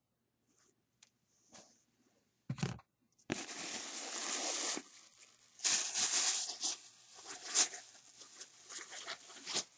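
A few faint clicks, a thump about two and a half seconds in, then a plastic bag rustling and crinkling loudly as it is handled and opened.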